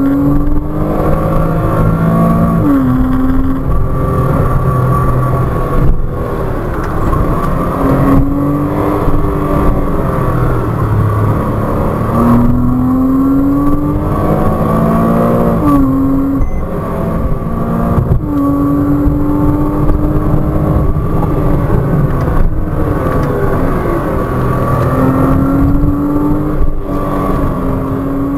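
Porsche Cayman 987.2's 2.9-litre flat-six heard from inside the cabin, pulling hard in second gear with its pitch rising several times and dropping back sharply between pulls, over steady road and tyre noise.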